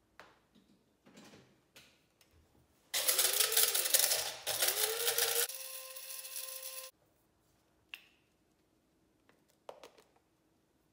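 Electric grinder grinding dehydrated lemon skins into lemon powder. It is a loud whirring grind of about two and a half seconds, in two pulses, starting about three seconds in. It settles to a smoother hum and cuts off about seven seconds in, with light handling clicks before and after.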